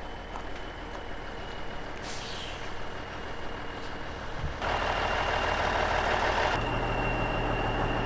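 Kenworth semi-truck running as it pulls in with a load of corn, the engine noise steady, then swelling into a louder rush for about two seconds just past the halfway point before settling into a low hum.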